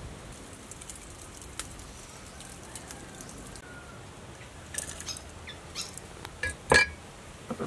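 Chopped garlic, green onion and chili being added to a black bowl: a handful of light clicks and taps starting about five seconds in, the loudest a sharp knock near the end, over a faint steady hiss.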